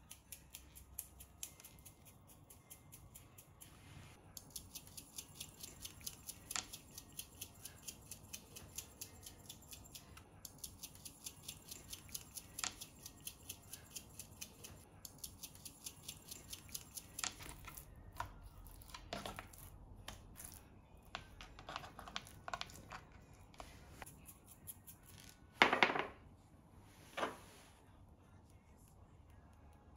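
Hand-twisted salt and pepper grinders clicking in long runs of quick, fine ticks, broken by short pauses. Two louder knocks near the end.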